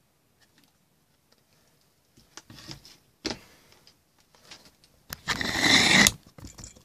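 Handling sounds: a digital multimeter and its test leads set down on a wooden bench, with a sharp knock about three seconds in, then about a second of loud rustling, scraping noise that starts and stops abruptly.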